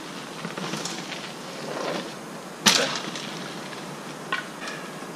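Mountain bike rolling over dirt, then one sharp, loud clatter of the bike landing a jump about two and a half seconds in, and a smaller knock near the end.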